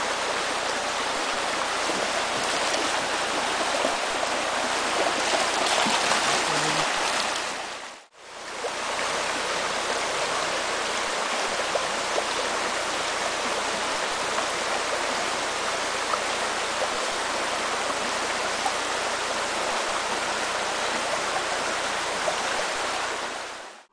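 Shallow rocky stream rushing over stones: a steady rush of running water, cut off briefly about eight seconds in before it resumes.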